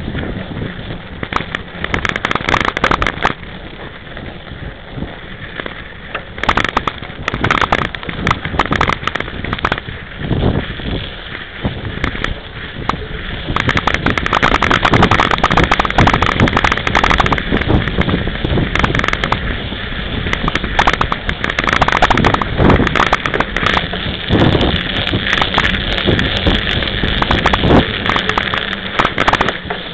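26-inch mountain bike ridden over snow, picked up by a handlebar-mounted camera: a dense crackling and rattling of jolts, knobby tyre on snow and wind on the microphone. It grows rougher and louder about halfway through.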